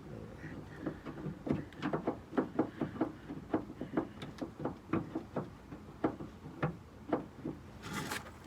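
Irregular light clicks and knocks, about two or three a second, as the liftgate switch is worked loose from its mounting by hand, with a short scrape near the end.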